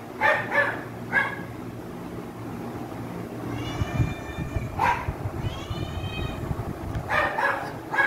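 Hungry pets crying out loudly for their food. There is a string of short calls, with two longer drawn-out cries a little past the middle.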